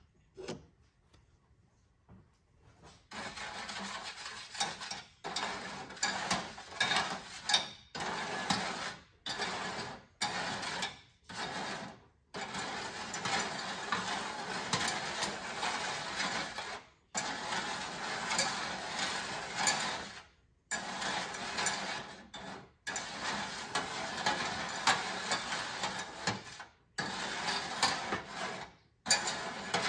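A brass piece scraping and stirring undissolved salt around the bottom of a metal pan of liquid, mixing a salt bath for tarnishing brass. The scraping starts about three seconds in and runs on, broken by many short, sudden gaps.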